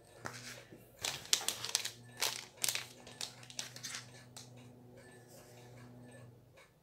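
Hands picking up and handling a wristwatch with a worn leather strap: a run of crinkling and sharp light clicks over the first four seconds, then quieter handling.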